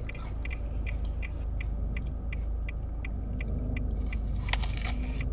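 Car driving, heard from inside the cabin: a steady low road and engine rumble, with a light regular ticking about three times a second. There is one sharper sound near the end.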